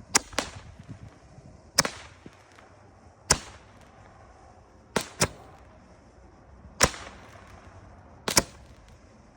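A Roman candle tube from a firework cake firing shot after shot: sharp pops roughly every one and a half seconds, with two in quick succession about five seconds in.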